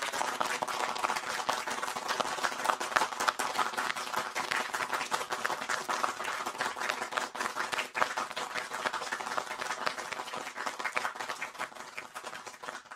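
Applause: many hands clapping in a dense, steady patter that tapers off near the end.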